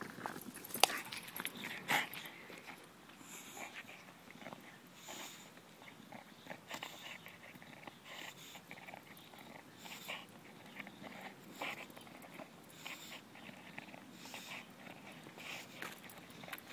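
A dog chewing and tearing at a rotten log, with irregular crunches and cracks of soft, crumbling wood and a breathy noise coming back about every second and a half. The loudest cracks fall in the first two seconds.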